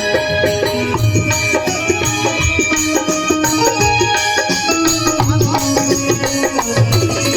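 Music with tabla-like hand drums and jingling percussion over a heavy bass line.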